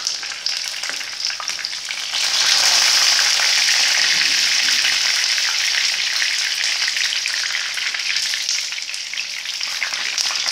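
Gram-flour-battered pumpkin flower pakoras deep-frying in hot mustard oil in a pan, with a steady sizzle. The sizzle jumps louder about two seconds in and then eases slowly, as the fritters are turned over to fry their other side.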